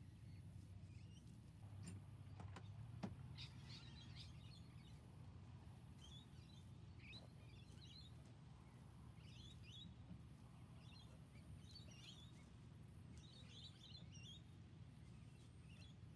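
Faint birds chirping in scattered short bursts over a low, steady background rumble, with two light clicks about two and a half and three seconds in.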